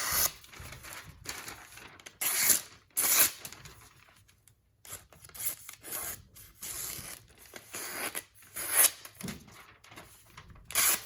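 A freshly sharpened Spyderco Military knife edge slicing through thin phone book paper in a string of short, crisp rasping cuts, several strokes a few seconds apart: a sharpness test on the new edge.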